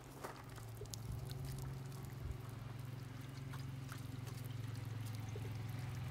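Water pouring from a watering can and splashing onto the face of a Starlink satellite dish, starting about a second in and running steadily, to simulate heavy rain. A steady low hum runs underneath.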